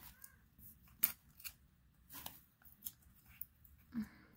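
Faint, scattered clicks and rustles of a small cosmetic package being opened by hand, about half a dozen short sharp sounds.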